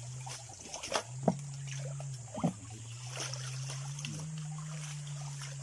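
Muddy swamp water splashing and trickling as hands dig and pull through the mud, with a few sharper sloshes, over a steady low hum.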